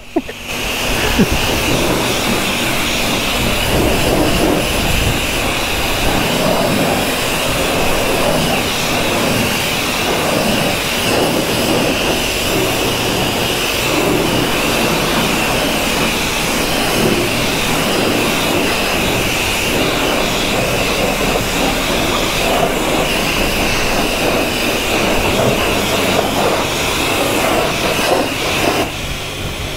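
Pressure-washer lance at a self-service wash spraying a high-pressure water jet onto a motorcycle to blast off mud: a steady hiss with the pump's hum underneath. It eases off briefly near the end.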